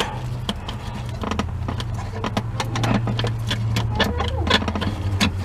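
Steady low drone of a motor vehicle's engine running, dropping in pitch about four seconds in, under scattered small clicks and plastic rattles of hands working a headlight bulb's electrical connector.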